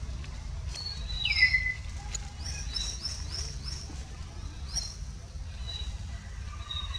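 Birds calling in the forest: a whistle falling in pitch about a second in, then a quick run of five short rising chirps and one more a little later, over a steady low rumble.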